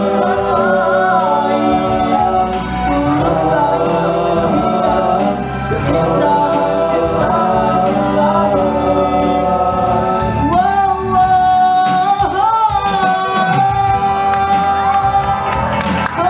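Vocal group singing sustained, multi-part harmony in a nasyid song, with the voices holding long chords and gliding between notes.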